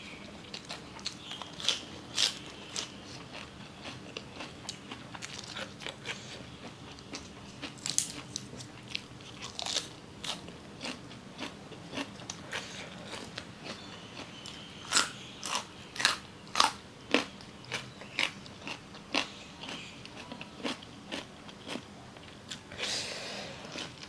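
Close-miked crunching bites and chewing of raw vegetables such as lettuce and carrot sticks, in an irregular run of crisp crunches, loudest about two-thirds of the way through.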